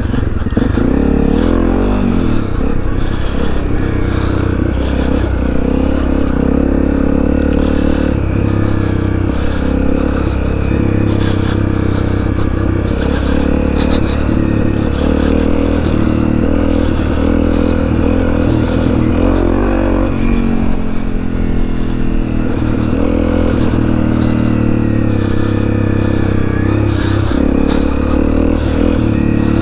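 Honda CRF250 trail bike's single-cylinder engine running under way off-road, revs rising and falling, dropping briefly about two-thirds of the way through and climbing again.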